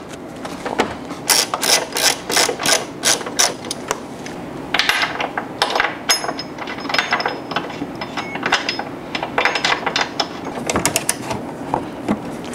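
Hand ratchet wrench clicking in quick runs of about four clicks a second as it turns a 13 mm nut on the strut tower.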